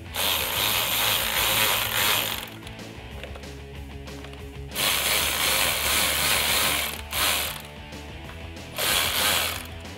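Cordless electric ratchet running in bursts as it drives the fog light's mounting bolts tight into the bumper. There are two runs of about two seconds each, a short blip just after seven seconds, and a last shorter run near the end.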